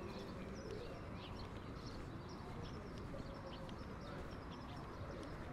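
Street ambience: a steady low hum of distant city traffic, with many short bird chirps scattered throughout.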